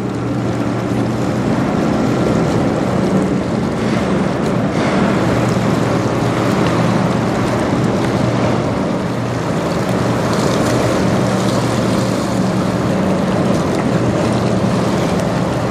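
Steady low drone of the Frontenac, a 729 ft bulk carrier, under way. It runs beneath a constant rush of wind on the microphone and choppy river water.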